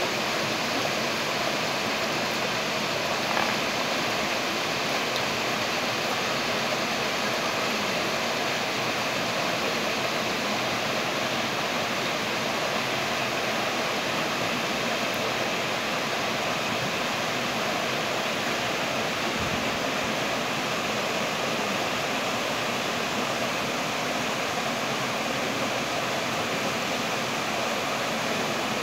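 Shallow stream rushing steadily over rocks and small cascades.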